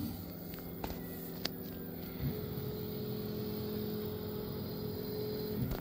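Creality K1 Max 3D printer running its self-check and bed-leveling routine: a steady mechanical hum of its motors and fans. A higher steady tone joins about two seconds in and stops shortly before the end, with a couple of faint clicks before it.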